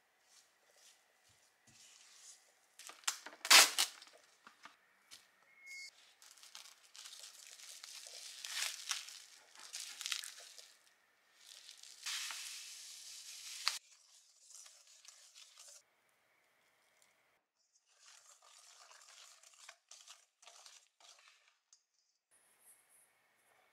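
Baking sounds: a spatula stirring and scraping cookie dough in a stainless steel mixing bowl, with a sharp clack about three and a half seconds in. A few seconds of rustling stop abruptly around the middle, and a wire whisk works the dough near the end.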